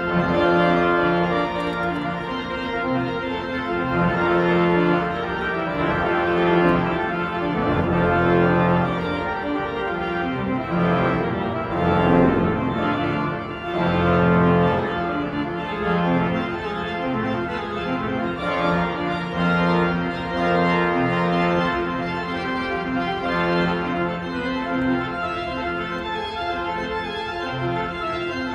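Church pipe organ playing sustained full chords with many stops drawn. The sound swells fuller around the middle, with deep bass notes entering.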